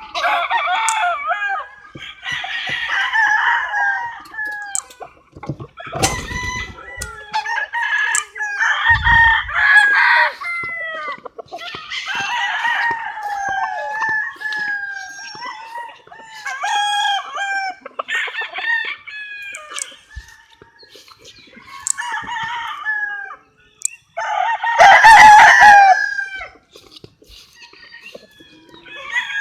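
Roosters crowing again and again, their calls following closely and overlapping, with chickens clucking between them; the loudest crow comes a few seconds before the end.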